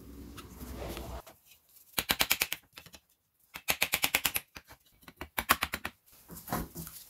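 Handling and a long screwdriver working on a removed BMW diesel EGR valve on a metal-topped bench: a low rumble at first, then four short runs of rapid clicking, about a dozen clicks a second, as the valve's actuator cover is worked loose.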